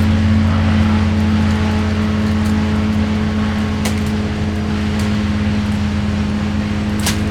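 A large engine running steadily at constant speed, its deep hum unchanging, with a couple of faint clicks about four seconds in and near the end.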